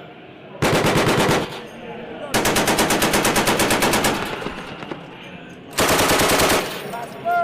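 Three bursts of automatic gunfire, rapid evenly spaced shots, the middle burst the longest at nearly two seconds.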